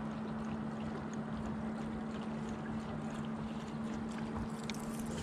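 Wind on the microphone and small waves lapping against a bass boat's hull, over a steady low hum, with a few faint light ticks.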